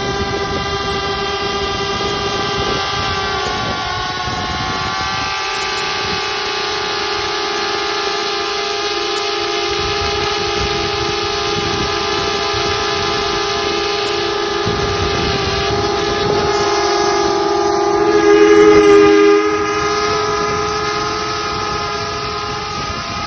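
DJI Spark quadcopter's four propellers whining steadily in a close hover, their pitches drifting slowly up and down against one another as the motors adjust speed. The whine swells briefly louder about three-quarters of the way through.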